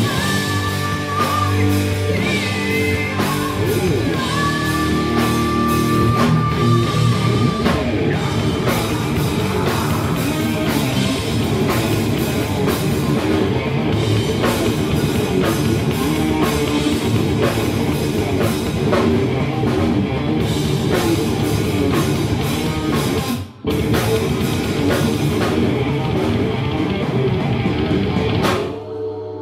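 Metal band playing live: distorted electric guitars, bass guitar and drum kit, with a vocalist over them. The music cuts out for an instant about two-thirds of the way through and the song ends shortly before the close.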